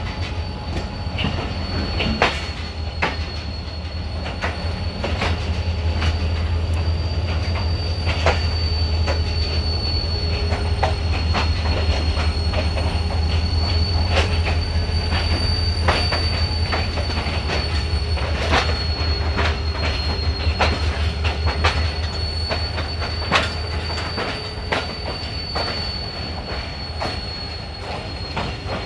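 Coaches of the departing Shah Latif Express rolling through the station yard's points and curves, heard from an open coach window: a steady high wheel squeal runs over frequent clacks of wheels over rail joints and points. Beneath it a low rumble eases off near the end.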